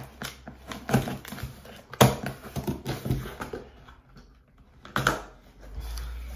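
A cardboard shipping box being cut and torn open by hand, with crackling cardboard and rustling foam packing peanuts. Sharp knocks come about one second in, two seconds in and near five seconds, with a quieter stretch in between.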